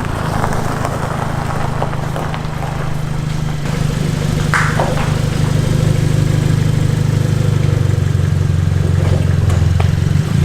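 Car engine idling steadily, slightly louder about four seconds in, with a brief high squeak near the middle.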